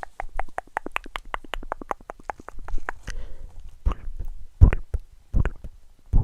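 Close-miked ASMR mouth sounds: a fast, even run of wet tongue or mouth clicks, about ten a second, for the first three seconds, then four louder, deeper mouth pops under a second apart.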